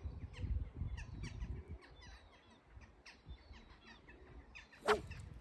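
Birds chirping and calling repeatedly, fairly quiet, over a low rumble that fades after the first couple of seconds. A single sharp, loud sound cuts in near the end.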